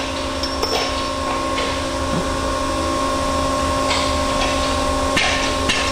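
Shop machinery running with a steady hum and low rumble, with scattered light clinks and rattles of metal end-forming tooling being handled.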